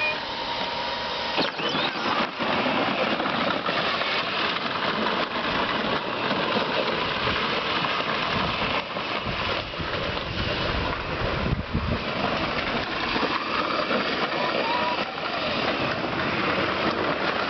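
A 24-volt Power Wheels ride-on toy car driving, with its electric motors running and its plastic wheels, wrapped in fan belts for traction, rolling over the ground in a steady noise.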